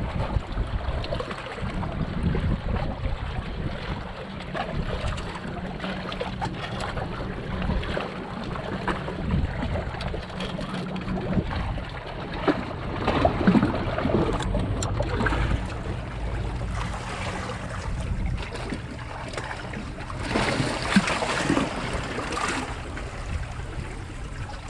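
Wind buffeting the microphone over sea water lapping and trickling, with a few louder sudden noises about halfway through and again near the end.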